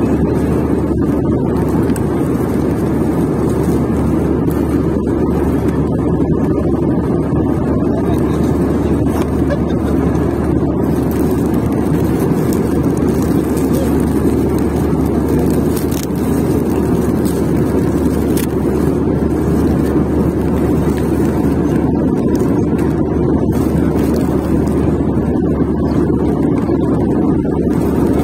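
Steady drone of an airliner cabin in flight: engine and airflow noise, deep and even throughout.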